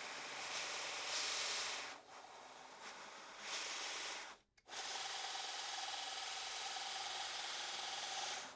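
DIY 2x72 belt grinder running, its abrasive belt an even hiss over the wheels, driven by a 2 HP motor on a variable frequency drive. The sound cuts out briefly about halfway through, and after that a steady whine runs under the hiss.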